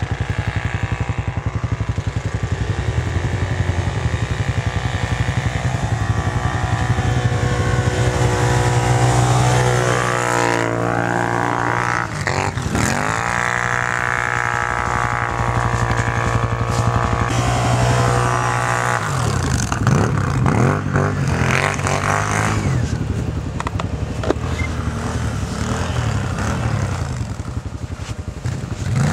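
ATV (quad bike) engine running and revving, its pitch climbing and falling as the throttle opens and closes. There is a sharp dip and climb about twelve seconds in, and the engine sound changes abruptly about nineteen seconds in.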